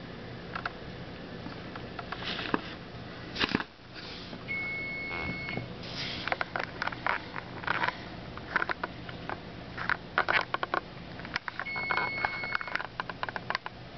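An electronic beeper sounds a steady, single-pitched beep about a second long, twice, some seven seconds apart. Between the beeps come scattered handling rustles and clicks over a low steady hum.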